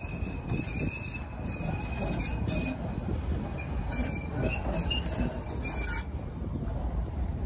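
Tram wheels squealing on curved track: a high-pitched screech of several steady tones that waver slightly, cutting off suddenly about six seconds in. The tram's low rolling rumble runs underneath.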